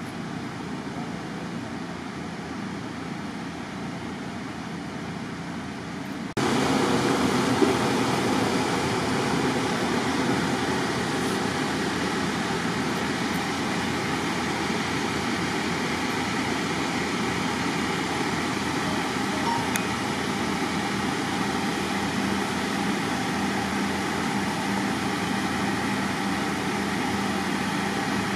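Steady mechanical drone of running machinery. It jumps abruptly louder about six seconds in and then holds a low steady hum.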